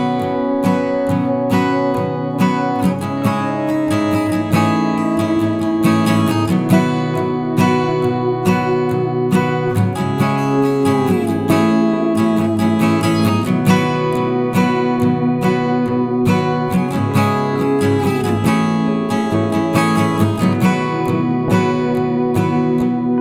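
Background music led by an acoustic guitar playing plucked and strummed notes at a steady pace.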